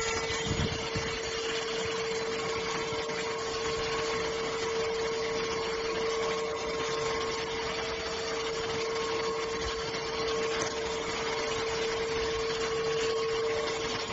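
Cordless stick vacuum cleaner running steadily: an even motor hum with a constant rush of air.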